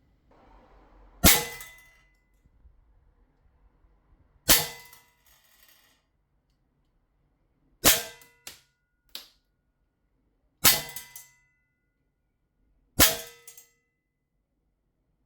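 Sig Sauer 1911 CO2 BB pistol firing steel BBs five times, a few seconds apart. Each shot is a sharp crack with a short metallic ring, with two fainter clicks after the third shot. Each shot leaves the gun at over 300 FPS.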